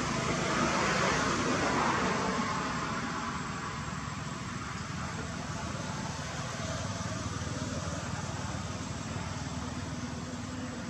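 Steady outdoor background noise: a low rumble with a hiss above it, a little louder over the first two seconds and then even.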